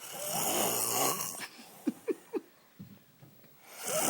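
A man snoring: one long snore over the first second and a half, a pause, then the next snore starting near the end.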